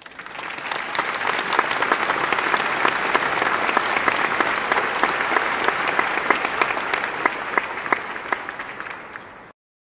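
A crowd applauding: many hands clapping together. It swells up over the first second, thins out toward the end and cuts off abruptly.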